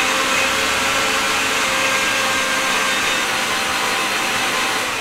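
Electric mixer grinder running at full speed, blending mango chunks with milk into a puree. A loud, steady whirring hum that begins to wind down near the end.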